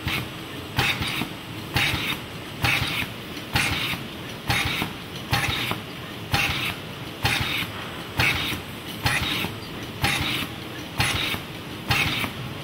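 Delta pick-and-place robot with a pneumatic gripper working rapidly, making a short burst of noise with each pick-and-place cycle, about once a second in an even rhythm, over a steady machine background.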